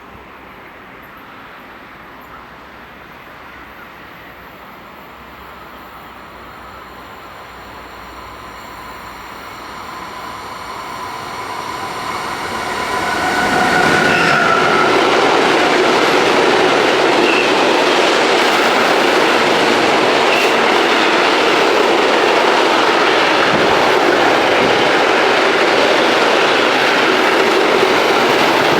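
Train approaching, growing louder over about six seconds, then passing close by with a loud, steady rush of wheels on the rails for the rest of the time.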